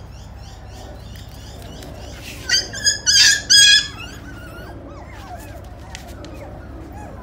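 Shmoodle puppy giving four loud, high-pitched yaps in quick succession a couple of seconds in, with faint high chirps before them.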